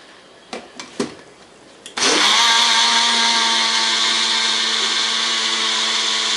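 Two light knocks, then a countertop blender starts abruptly about two seconds in and runs at a steady pitch, blending protein shake powder with almond milk.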